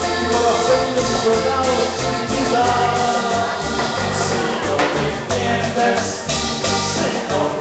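Live Latin dance band playing, with a singer over a steady bass beat and hand percussion.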